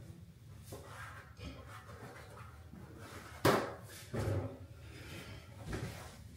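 Small objects being handled on a hard surface: faint rubbing and handling, a sharp knock about three and a half seconds in, then a few softer knocks.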